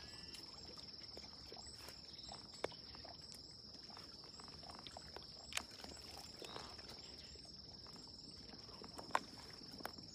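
Faint, steady high-pitched trill of insects, with a few soft clicks scattered through it.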